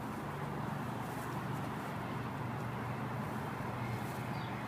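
Steady distant hum of highway traffic rising from the road far below, with no single vehicle standing out.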